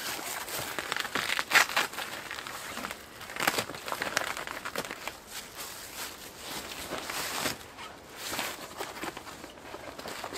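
Tent fabric crinkling and rustling in irregular bursts as the door panel is handled and pressed into place.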